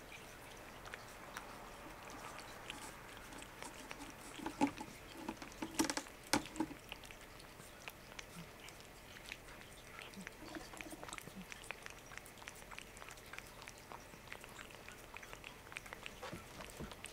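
Calico cat licking paste from a squeeze-tube treat packet held out by hand: a steady run of small wet tongue clicks and smacks, louder for a couple of seconds about five to six seconds in.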